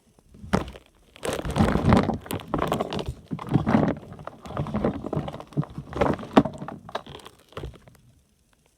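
Fidget toys being handled and rummaged through: irregular rustling and crinkling with soft thunks and knocks, stopping shortly before the end.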